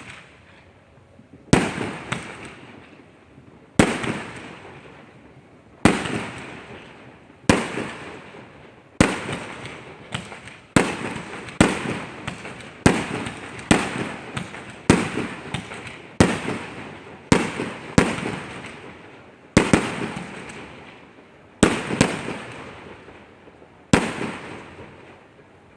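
Fireworks going off: a string of sharp bangs, each trailing off in a rolling echo. They come about every two seconds at first, then quicken to about one a second in the middle before spacing out again.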